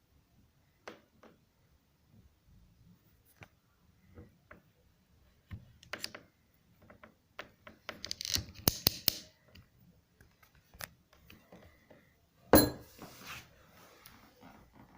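Ratchet cable cutter being worked: scattered metallic clicks, a quick run of clicks about eight seconds in, and one loud sharp clack about twelve and a half seconds in.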